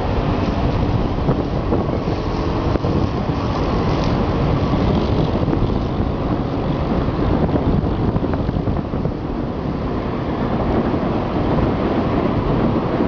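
Wind blowing over the microphone of a camera hung from a kite, a loud, steady rushing noise.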